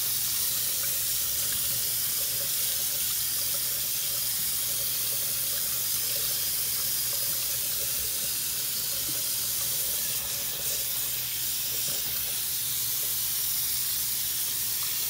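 Bathroom sink faucet running, a steady stream of water falling into the basin.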